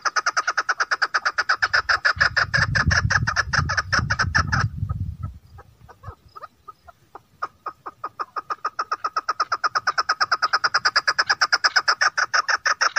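Chukar partridge calling: a fast, even series of short chuk notes, about nine a second, that breaks off about four and a half seconds in, falls to scattered notes, then builds back into a steady run from about seven and a half seconds on. A low rumble sits under the first run.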